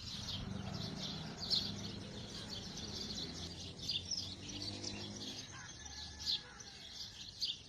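Many small birds chirping in quick, repeated short calls, over a low steady hum that fades out near the end.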